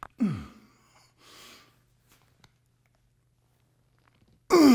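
A man's effortful breathing and grunts while pushing a resistance-band bar out in a triceps extension: a short grunt falling in pitch near the start, a soft breath about a second and a half in, and a louder falling grunt near the end. A few faint clicks come in between.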